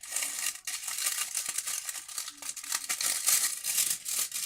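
A small packaging envelope being torn open by hand, with continuous crinkling and tearing.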